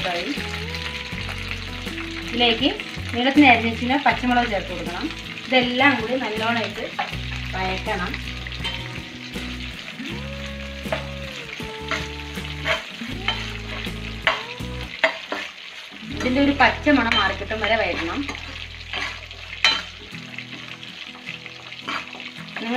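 Garlic, green chillies and curry leaves sizzling in hot oil in a non-stick frying pan, with a spatula stirring and scraping across the pan. Wavering pitched sounds come and go in the background.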